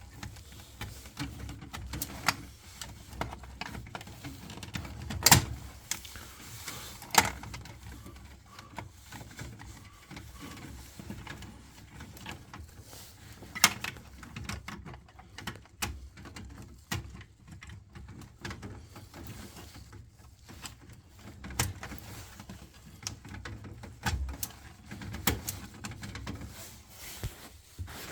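Scattered clicks and knocks of plastic and metal parts being handled while a reconditioned control board is fitted into a gas combi boiler: connectors being pushed on and the board housing being seated. The sharpest knocks come about five, seven and fourteen seconds in.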